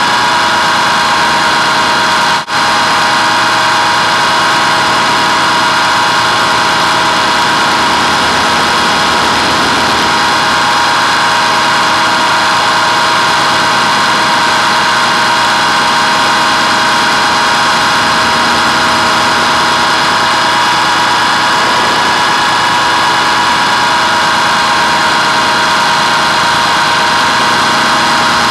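Steady high whine of a radio-controlled model plane's motor and propeller, heard from a camera riding on the plane in flight, over a rush of air noise. The sound drops out for an instant about two and a half seconds in.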